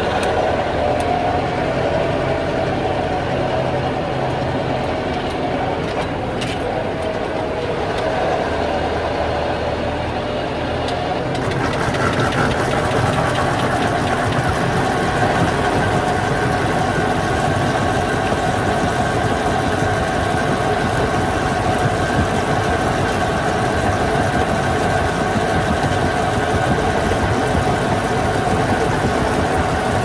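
Tractor engine running with a PTO-driven muck spreader working, flinging manure. About eleven seconds in, the sound gets fuller and higher as spreading gets going, and it stays steady after that.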